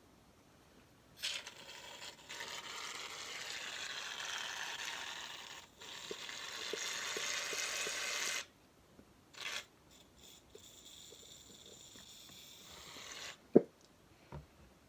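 Aerosol can of shaving cream spraying out foam in a long hiss, broken briefly about halfway, then a fainter, shorter spurt.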